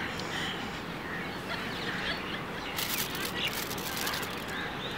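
Birds chirping over steady outdoor background noise, with a short patch of crinkling from a chocolate wrapper being handled about three seconds in.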